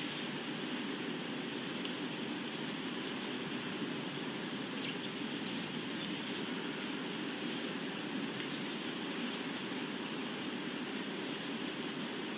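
Steady outdoor ambience: a constant even rushing noise with faint, scattered bird chirps over it.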